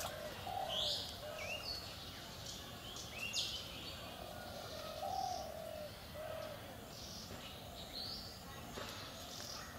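Wild birds calling: several short, sharp high chirps, with a lower, softer call repeated a few times underneath.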